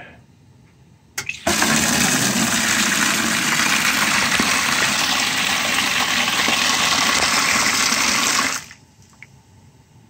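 Water rushing hard out of a steam boiler's quarter-turn drain valve into a bucket. It starts just after a click about a second in and cuts off suddenly after about seven seconds. The boiler is being drained to drop its water level and test the low water cutoff.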